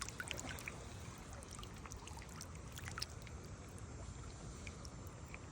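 Faint river water trickling and lapping, with scattered small drips and ticks.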